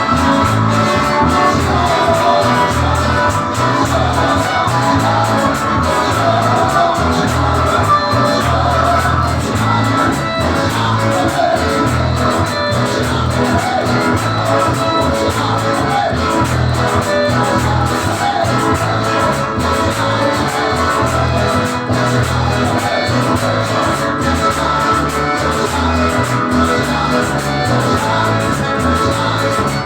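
Live band music with electric guitar and a heavy bass line, and some singing.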